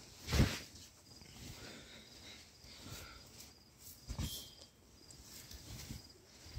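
Handling noise from a phone rubbing against bedding and fabric, with a sharp bump about half a second in and a smaller one around four seconds. Behind it are faint, evenly spaced cricket chirps, about two a second.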